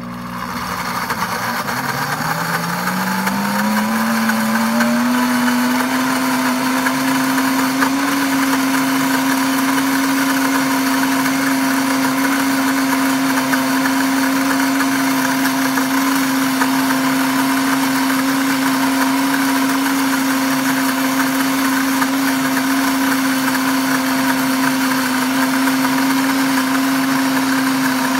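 Pampered Chef Deluxe blender's motor running on speed 7, churning a thick hazelnut-and-cocoa butter. The motor spins up over the first five seconds or so, its hum rising in pitch, then runs at a steady pitch.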